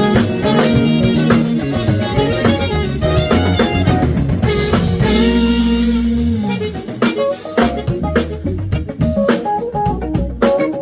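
Live smooth-jazz band playing, with electric bass, drum kit and guitar prominent. About five seconds in, a long low note is held and then slides down, and the drumming gets busier after it.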